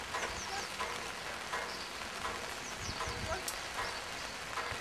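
Small birds chirping repeatedly over a steady background hiss, with a brief low rumble about three seconds in.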